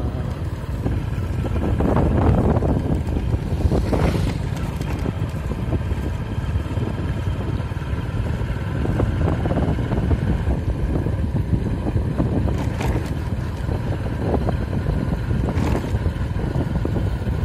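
Honda motorcycle engine running steadily while riding along a road, with wind buffeting the microphone.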